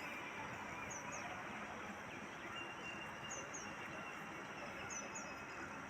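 Faint steady background hiss with a few brief, quiet, high chirps.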